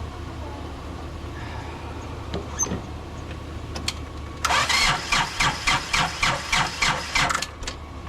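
Tractor engine being cranked by its starter for about three seconds, a rhythmic chugging about four times a second, without firing or catching. A low steady hum lies underneath.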